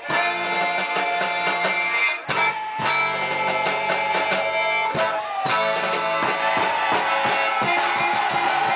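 Band music with guitar and drum kit playing, broken off briefly about two seconds in and again about five seconds in.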